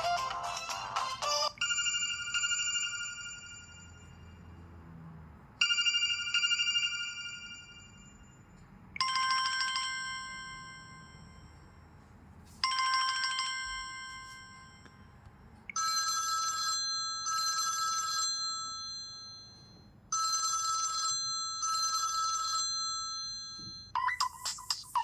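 Samsung Galaxy Mini phone ringtones played one after another. The end of a busy melody gives way to a chime that rings out and fades, heard twice, then a brighter chime heard twice, then a short double chime twice. Another busy melody begins near the end.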